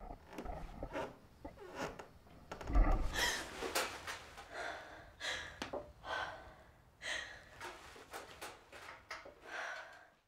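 A woman breathing hard in quick, ragged breaths, about one a second, as she jolts awake in panic from a nightmare. The loudest is a sharp gasp with a low thump about three seconds in, and the breaths die away near the end.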